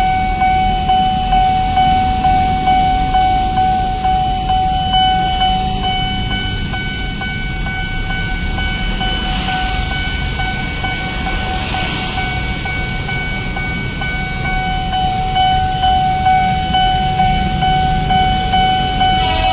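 Railway level-crossing warning alarm sounding continuously, a pulsing electronic tone that warns of an approaching train, over the low rumble of waiting road traffic.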